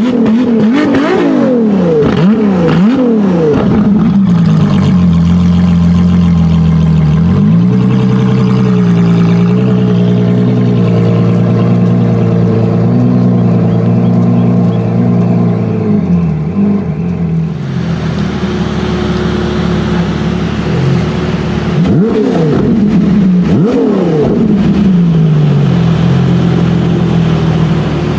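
A Ferrari LaFerrari Aperta's 6.3-litre V12 is revved in several quick blips, its pitch sweeping up and down, then holds a steady note. About twenty-two seconds in it is blipped a few more times before settling to a steady note again.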